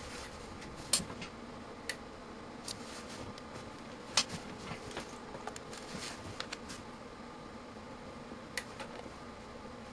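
Sharp, irregularly spaced clicks from a 2 kV surge tester firing pulses into a Mastech MS8261 multimeter, the loudest about a second in and about four seconds in. A steady hum of bench equipment runs underneath.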